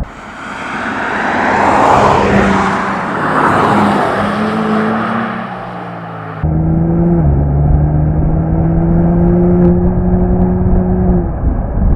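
Porsche Cayenne S E-Hybrid's 3.0-litre turbo V6 and exhaust running while driving: first a swell of engine and road noise that peaks about two to three seconds in, then, after an abrupt cut about six seconds in, a steady engine note that climbs slowly in pitch, cut off again near the end.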